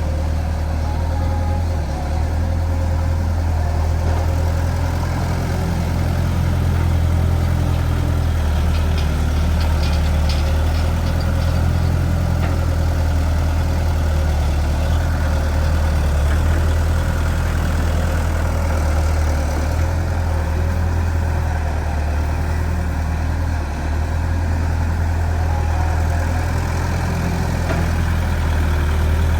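Excavator's diesel engine running steadily at a low, even hum while it digs soil, with a few faint clicks about ten seconds in.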